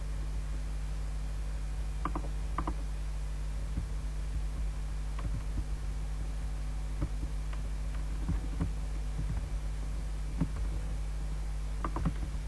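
Steady low electrical hum with faint, scattered clicks of a computer mouse and keyboard: a quick pair about two seconds in, single clicks through the middle, and another pair near the end.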